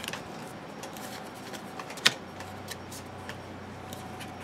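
Trading cards being handled and laid onto piles on a table: soft scattered taps and card slides, with one sharper click about two seconds in.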